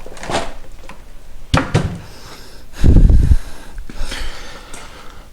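A chair being shifted out of the way: a sharp knock about one and a half seconds in, then a heavy, low thump about three seconds in, with rustling around it.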